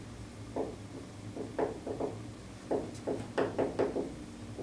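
Dry-erase marker writing on a whiteboard: a quick, uneven run of short scratchy strokes and taps as letters are written, over a low steady hum.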